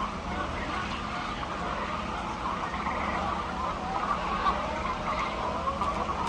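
Many hens clucking and calling at once, a continuous din of overlapping calls over a steady low hum.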